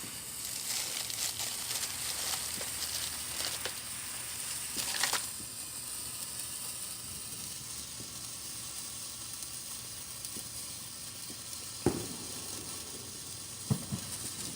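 Handheld sparkler burning with a steady hiss and fine crackling, denser in the first few seconds, with two sharp pops near the end.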